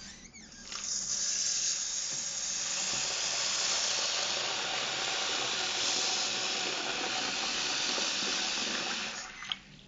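Tap water pouring in a steady stream into a plastic bucket of worms in a sink, filling it. The flow starts about a second in and stops shortly before the end.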